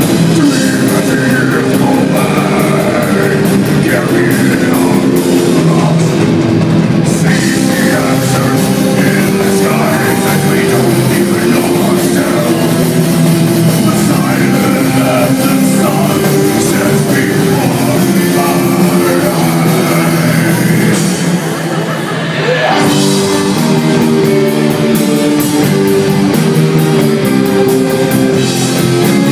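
Live rock band playing heavy, metal-style music: guitars, drum kit and sung vocals. The sound dips briefly about three-quarters of the way through, then comes back full.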